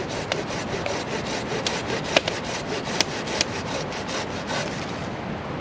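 Silky BigBoy folding pull saw cutting through a log in quick, even strokes, about four a second, stopping shortly before the end.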